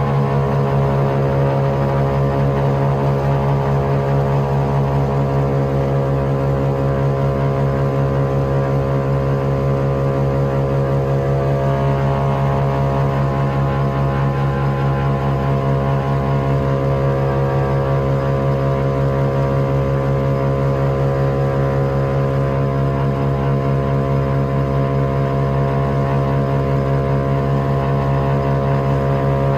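Wright R-1820 Cyclone nine-cylinder radial engines and propellers of a Boeing B-17G Flying Fortress running steadily at climb power after takeoff, heard from inside the fuselage as a loud, even drone.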